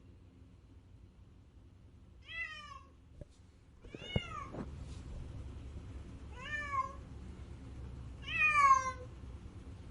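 Domestic cat crying, meowing four times about two seconds apart, each call bending down in pitch at its end; the last is the loudest. A short click falls between the first two calls.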